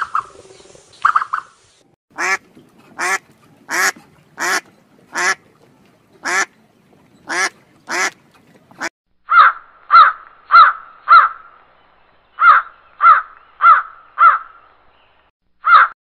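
Mallard quacking: a run of about ten harsh quacks at irregular spacing, then a different series of evenly spaced bird calls, a run of four and a run of five, with one more call near the end.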